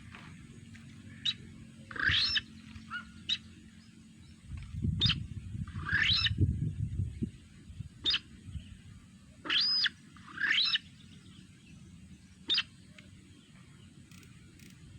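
A bird calling repeatedly: short sharp chirps alternate with longer calls that swoop up and down, one every second or two. A low rumble underlies the calls for a few seconds near the middle.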